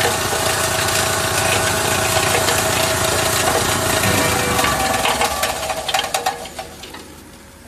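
A 7.5 hp scissor-cut plastic granulator running and chopping plastic into regrind: a steady, loud mechanical din full of cracks and clicks. The noise thins out and falls away over the last couple of seconds.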